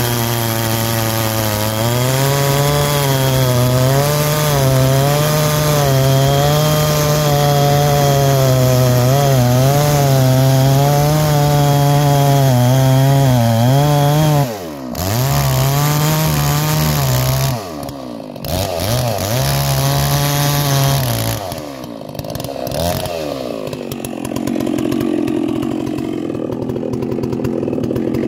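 Holzfforma G660 two-stroke chainsaw with a 36-inch bar cutting through an oak log under load, its engine pitch wavering as the chain bites. About halfway the revs drop sharply and are brought back up a few times, and near the end the saw runs lower and rougher.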